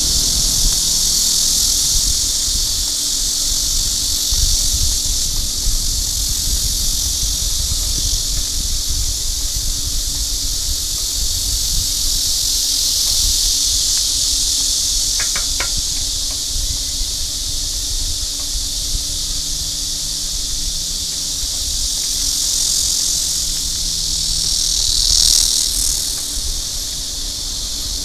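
Steady high-pitched insect drone from the trees, with wind buffeting the microphone in gusts.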